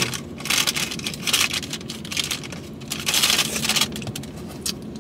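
A spoon stirring shaved ice in a plastic cup of halo-halo, heard as four or five scraping, crunching bursts with short pauses between them.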